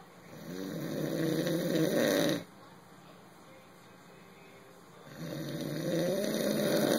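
Two long snores, each building in loudness for about two seconds and then cutting off abruptly, with a quiet breath-length gap between them.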